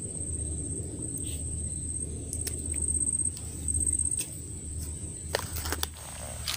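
Low rumble of handling and movement noise on the microphone, with scattered clicks and knocks, as someone moves through mangrove roots. Over it runs a thin, steady, high-pitched insect whine that swells a few times.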